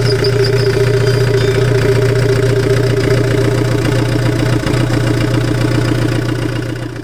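Tata Winger engine idling steadily after its overhaul, then fading out near the end.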